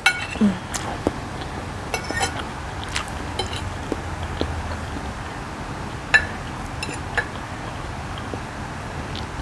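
Metal fork clinking and scraping against a ceramic plate while noodles are twirled and picked up: a dozen or so separate light clinks at uneven intervals, the sharpest about six seconds in.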